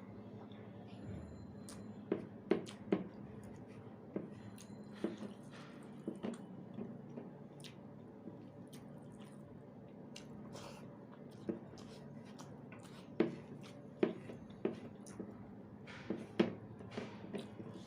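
Wet, squishy smacks and clicks of someone eating rice with dal and egg curry: mouth noises of chewing, coming in irregular clusters, over a faint steady low hum.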